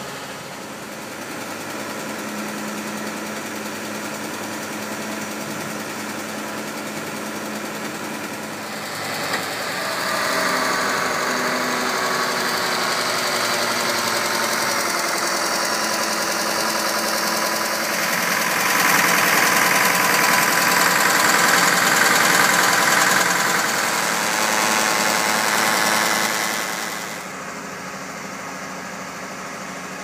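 Engine of a Lollini 500 mobile scrap metal baler shear running steadily. It gets louder about nine seconds in, louder again about eighteen seconds in, and drops back a few seconds before the end.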